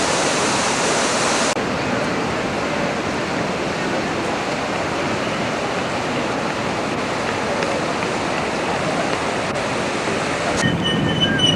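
Steady, even rush of water splashing from the Pusteblume (dandelion) fountains.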